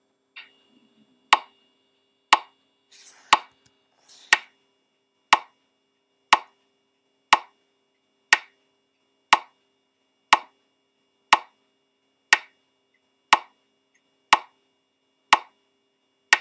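Metronome track in an animation timeline ticking steadily during playback, one sharp click per second, starting about a second in.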